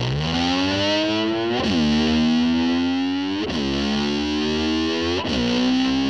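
Distorted electric slide guitar imitating a motor scooter: its pitch climbs in long sweeps like an engine revving, with a quick dip about every two seconds like a gear change.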